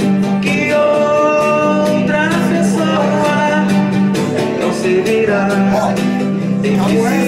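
A man singing, accompanying himself on a strummed classical nylon-string guitar.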